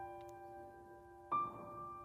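Background music from a slow pop ballad, with no vocals at this point: soft keyboard notes ring and fade, and a new note is struck just past halfway.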